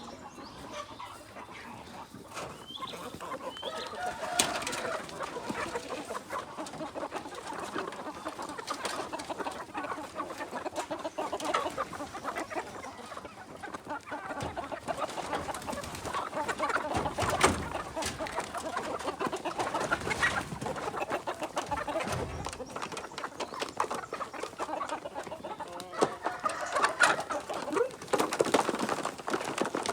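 A flock of kampung chickens clucking, many birds calling over one another without a break, with a few louder calls standing out.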